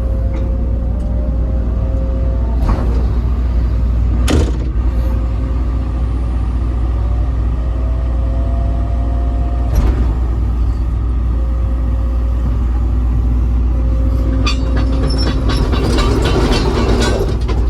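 Case CX240B hydraulic excavator running, its diesel engine giving a steady low rumble under a hydraulic whine that rises and falls in pitch as the controls are worked. There are a few sharp clicks, and from about 14 seconds in a dense rattling and clanking sets in as the machine travels on its tracks.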